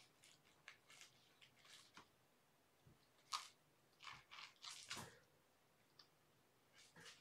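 Kitten biting and scuffling with a rabbit-fur toy mouse: faint, scattered rustles and clicks, the sharpest a little over three seconds in and a quick run of them between four and five seconds.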